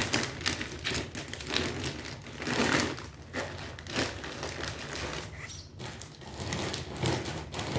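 Thin plastic carrier bag rustling and crinkling in irregular crackles as it is handled, squeezed and pushed into a suitcase.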